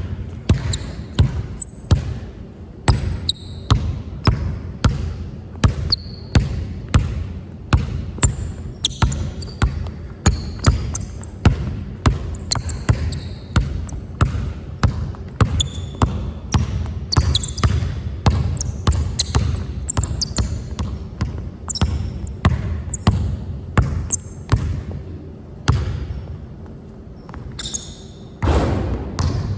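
A basketball dribbled over and over on a hard court, about two bounces a second and at times quicker, with short high squeaks in between. A louder rush of noise lasting about a second comes near the end.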